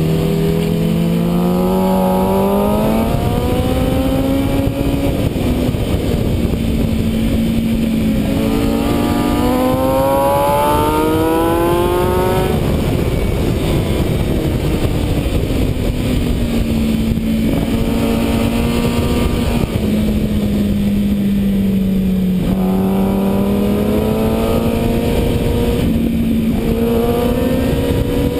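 Sport motorcycle engine heard from onboard at speed, over heavy wind rush. It climbs in pitch under acceleration, drops suddenly about twelve seconds in, sinks slowly for several seconds, then climbs again near the end.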